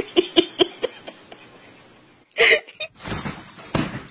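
A cat chattering: a quick run of short chirps, about five a second, that fades out within the first second. A single louder call follows about two and a half seconds in, then loud rustling and scuffling from about three seconds.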